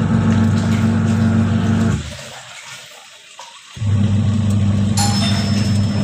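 Whirlpool Magic Clean top-loader's drain motor humming as it is powered to pull the drain valve open. It is a steady electrical hum that cuts off about two seconds in and starts again nearly two seconds later.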